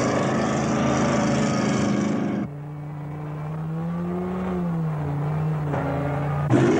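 Sound effect of a giant futuristic land train's engines running, a loud, dense rumble with hiss. About two and a half seconds in it cuts abruptly to a quieter, steady low hum whose pitch rises and falls slightly, and the loud rumble cuts back in near the end.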